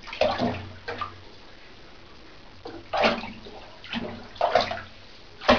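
Shallow bathwater splashing as a cat paws and pounces at small fish swimming around it, in about six separate short splashes with pauses between them.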